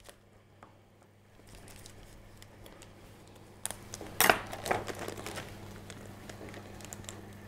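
Plastic bag crinkling as it is handled over a low steady hum, with a sharp knock about four seconds in and a few lighter clicks after it.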